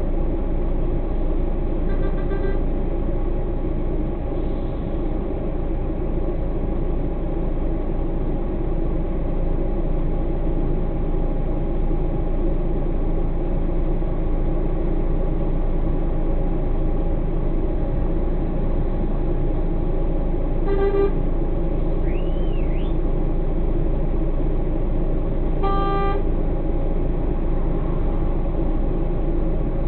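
Truck diesel engine idling steadily, heard from inside the cab, while the truck stands in a queue. Three short horn toots break in: a faint one near the start and two louder ones about five seconds apart later on.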